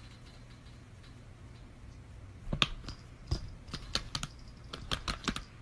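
Typing on a laptop keyboard: irregular key clicks in short runs, starting about two and a half seconds in, over a low steady hum.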